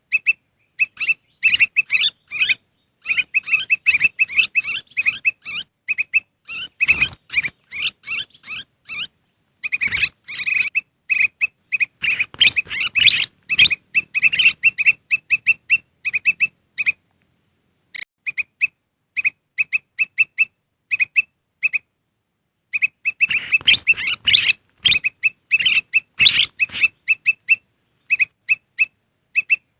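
Kutilang emas (a bulbul) calling in a lure recording: rapid runs of short, high chirps with busier, excited bouts, the kind of call used to bring wild birds of the species in. The calls break off briefly twice in the second half.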